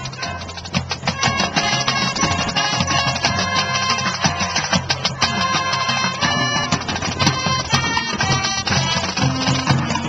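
High school marching band playing its field show: a busy run of quick, short notes over held low notes, filling out about a second in.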